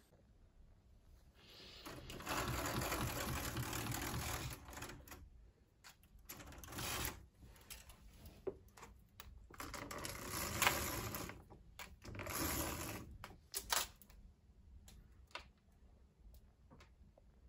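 Bristles of a toothbrush scrubbing in bursts, then the rattling, clicking mechanism of a roller blind as it is pulled up.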